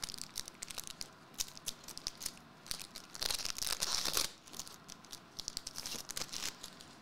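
Foil wrapper of a Marvel Eternals trading-card pack being torn open and crinkled by hand: sharp crackling throughout, with a longer tear lasting about a second, some three seconds in.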